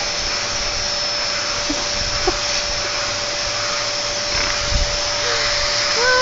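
Vacuum cleaner running steadily with a constant whine as it is drawn over a dog's coat.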